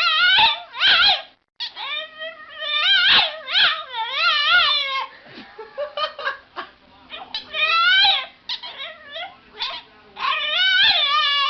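A dog vocalising in repeated high, wavering whining howls, the pitch wobbling up and down within each call.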